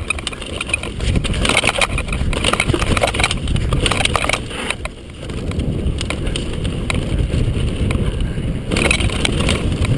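Mountain bike descending a rocky dirt trail at speed: tyres crunching over gravel and stones, the bike rattling over the bumps, and wind rumbling on the microphone. The sound drops away briefly about five seconds in.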